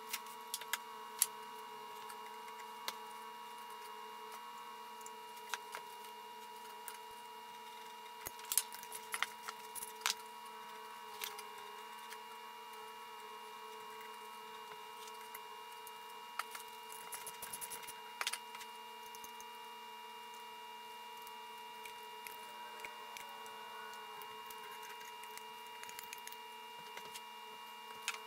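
Scattered light clicks and knocks of painted cast-iron Craftsman 3 1/2" bench vise parts being handled and fitted together, some in quick clusters, over a steady background hum.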